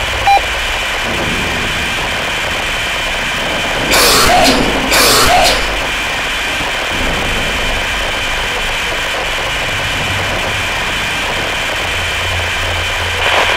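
A steady low hum and hiss with faint high tones, broken by two short loud bursts of static about four and five seconds in.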